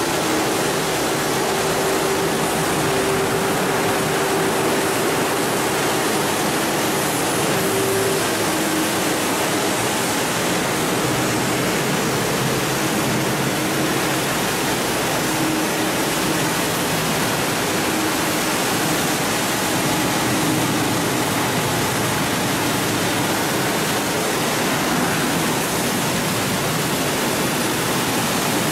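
Julun SPG automatic granite polishing machine running: a steady, loud rushing noise from its polishing heads grinding wet granite slabs under flowing water. A faint steady hum drops slightly in pitch about eight seconds in.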